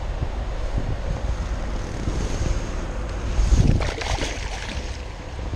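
Wind buffeting an outdoor microphone, a steady low rumbling haze. About three and a half seconds in comes a brief, louder burst of rustling and scuffing.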